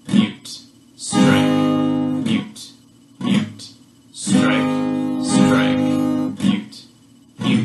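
Acoustic guitar, capoed at the fourth fret, strummed slowly in a strike-miss-mute pattern: two chords ring out for a second or two each, broken by short, choked strokes on muted strings.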